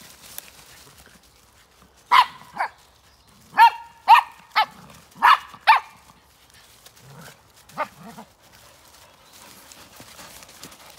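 Dog barking: a run of short, sharp barks in twos and threes, starting about two seconds in and ending about eight seconds in.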